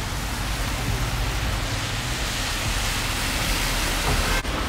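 Steady rain hiss with traffic on a wet road and a low engine rumble; the hiss grows brighter a few seconds in as a city bus passes close, its tyres swishing through the water on the asphalt.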